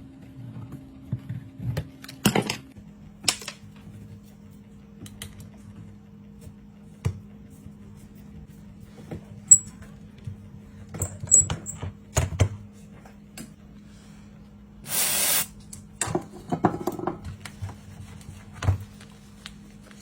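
Scattered small clicks and taps of hand tools and phone parts on a workbench during an iPhone repair, over a steady low hum. A short hiss comes about fifteen seconds in.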